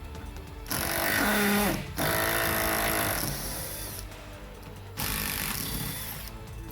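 A power tool backing out 10 mm bolts in three bursts of about a second or more each, its pitch sliding as it runs.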